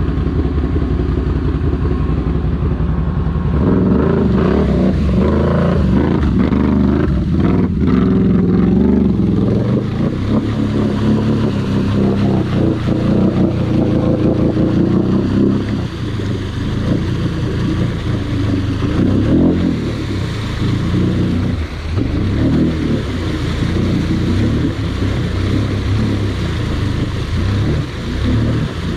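Can-Am ATV engine running steadily, then revving hard from about three and a half seconds in as it churns through deep mud and water, the pitch rising and falling with the throttle.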